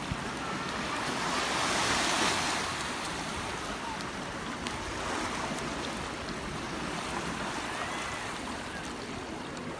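Small sea waves washing onto a beach as a steady hiss of surf, with one wash swelling louder about two seconds in.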